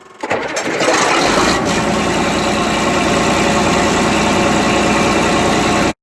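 Combine harvester engine running steadily with a low rumble. It comes up quickly in the first second and cuts off suddenly near the end.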